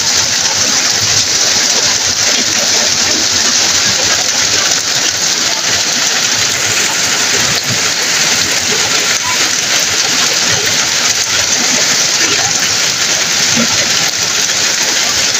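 Heavy rain pouring down steadily, a loud, even hiss of a thunderstorm downpour.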